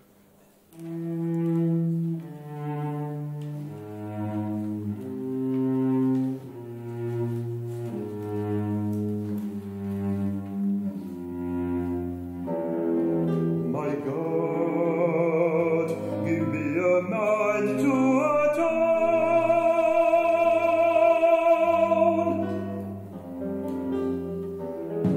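Live chamber-opera music: a slow line of sustained low instrumental notes, joined about fourteen seconds in by an operatic voice singing with a wide vibrato, the loudest stretch near the end.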